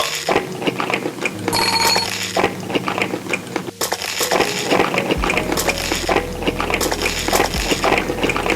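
Cutlery clinking and scraping against dishes in quick, irregular clicks, as from eating a meal.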